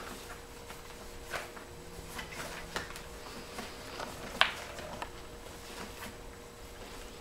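Five-week-old pointer puppies playing: scuffling and scattered light taps and knocks from paws and bodies on the mat and paper-covered floor, with one sharper knock about four and a half seconds in. A faint steady hum runs underneath.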